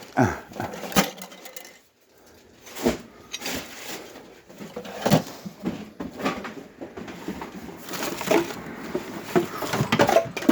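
Irregular knocks and clattering of junk and scrap items being handled and shifted about.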